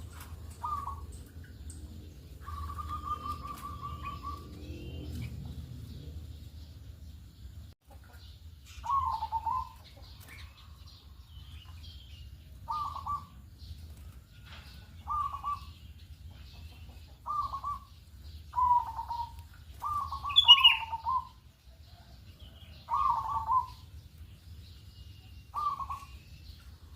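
Zebra dove (perkutut) cooing. About three seconds in comes a rolling trill of quick notes, followed by short coos repeated every couple of seconds. Around twenty seconds in there is a sharper, higher chirp.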